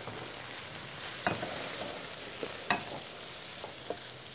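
Wooden spatula scraping and knocking against a hot frying pan as fried chickpeas, peas and corn are pushed out into a bowl, over the steady hiss of the pan still sizzling. Two sharper knocks with a short ring come about a second in and near the three-second mark, with lighter taps after.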